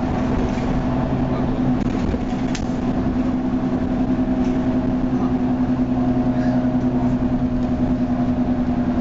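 Leyland Lynx Mk2 bus with a Cummins L10 diesel engine heard from inside the saloon while under way: a steady engine drone holding an even pitch with road rumble beneath, and a single brief click about two and a half seconds in.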